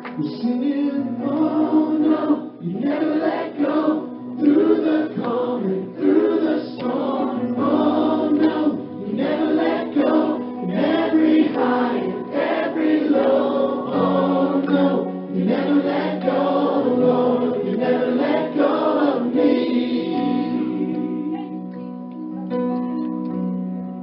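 Christian worship song with a choir singing over sustained keyboard chords; the singing stops about 20 seconds in and the chords carry on alone.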